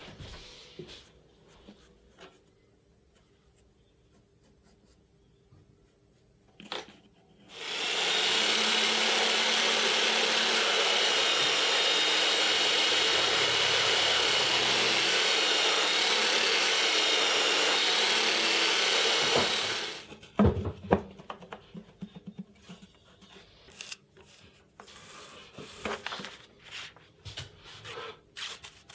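A belt sander runs steadily for about twelve seconds, starting about eight seconds in, as a piece of plywood is held against the moving belt. Before and after it there are only faint pencil scratches, small knocks and paper handling.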